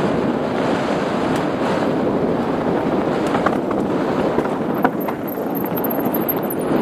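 Mountain bike descending a loose rocky gravel trail: a steady rush of wind on the camera microphone mixed with tyres rolling over stones, broken by a few sharp knocks from the bike over rocks.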